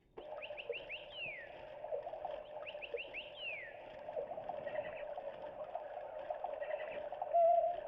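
Battery-operated toy bird switched on and playing electronic chirps over a steady hum. The chirps come as two quick runs of falling notes, one near the start and one about three seconds in.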